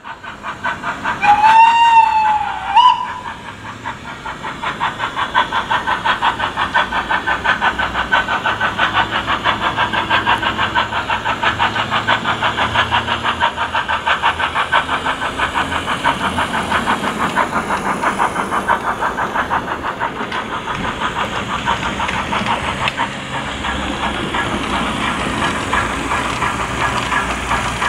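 Steam locomotive sound from a Zimo DCC sound decoder playing a Digitrain sound file through the speaker of a Bachmann OO gauge LYR 2-4-2T tank engine model: two whistle blasts, a longer one rising then falling in pitch and a short one, then steady, rapid exhaust chuffs that build up about four seconds in and carry on evenly as the model runs.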